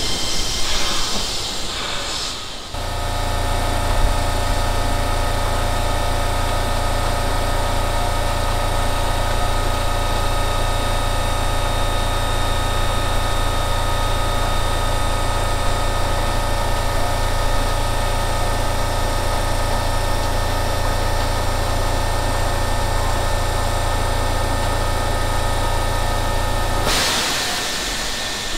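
Train running noise fades over the first few seconds. Then an electric train's under-floor air compressor cuts in sharply and runs with a steady hum and a set of even tones. About a second and a half before the end it cuts out abruptly, as it reaches pressure.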